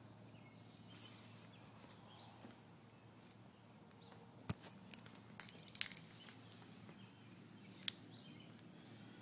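Near silence: a faint steady low hum with a few short, scattered clicks, the sharpest about four and a half seconds in and just before eight seconds.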